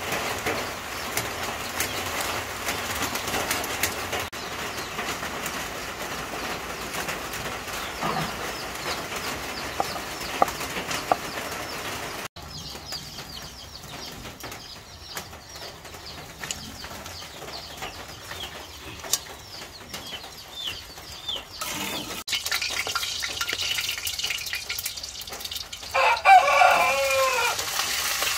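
Chickens calling, with short high chirps through the middle and a rooster crowing loudest near the end. For the first part this sits over a steady hiss.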